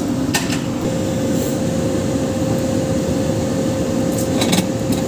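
Steady mechanical drone with a constant whine from a train standing at the platform. A few short clicks come about half a second in and again around four and a half seconds in.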